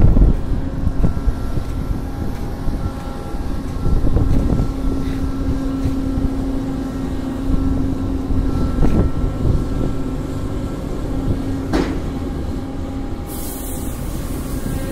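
Ship's deck crane running with a steady low rumble and hum as it works a clamshell grab, with one sharp clank about twelve seconds in. Near the end the opened grab dumps bulk cargo into the barge's hold with a rushing hiss.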